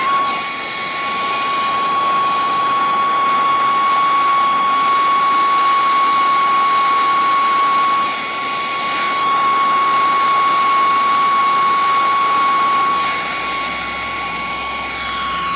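Handheld gas torch flame hissing steadily with a constant high whistle, heating aluminum tubing to melt an aluminum brazing rod into the joint. It dips briefly about eight seconds in and runs softer near the end.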